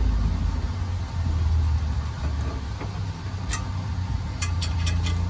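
A socket ratchet clicks as a bench-vice mounting bolt is tightened: a single click a little past halfway, then a quick run of about five clicks near the end. Under it runs a steady low rumble, the loudest sound throughout.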